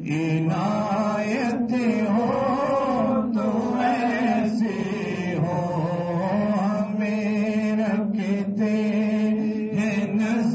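A man singing a naat, a devotional Urdu hymn, solo. He draws out long held notes whose pitch bends and ornaments without forming clear words.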